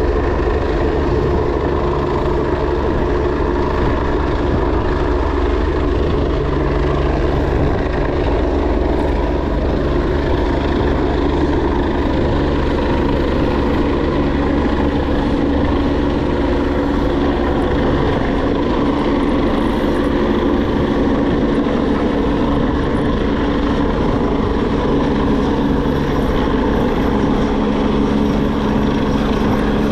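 Steady, loud engine drone with several low humming tones held throughout, which shift a little in pitch near the end, over a low rumble.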